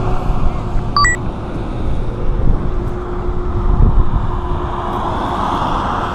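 Wind buffeting the microphone beside a highway, with passing road traffic swelling near the end. A short two-note electronic beep sounds about a second in.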